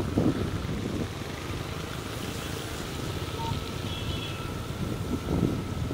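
Motorbike traffic on a rain-wet street: a steady low rumble of engines and tyres, with a faint steady high whine from about a second and a half in.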